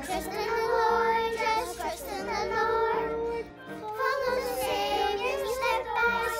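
Children's choir singing a song together in held, sustained notes, with a short break between phrases about three and a half seconds in.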